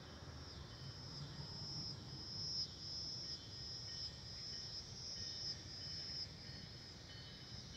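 Insects chirping in an even pulsing rhythm, roughly three high-pitched pulses every two seconds, over a faint low rumble.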